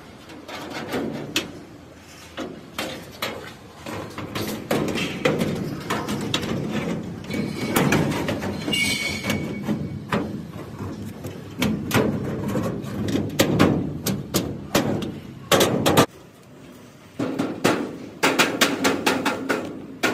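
Irregular clicks, knocks and scraping of metal door-lock parts being handled and fitted into a door, with a brief high squeak about nine seconds in.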